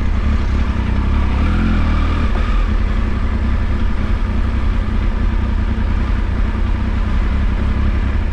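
Motorcycle engine running steadily on the move, with a heavy low rumble under the engine note.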